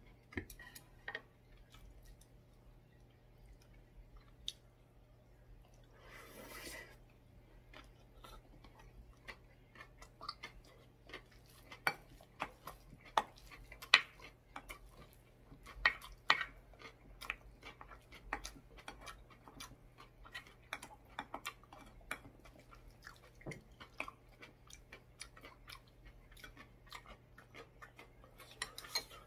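Close-up eating sounds: chewing bean sprout rice, with a wooden spoon and chopsticks clicking and scraping against the bowl in many short sharp taps, busiest in the middle.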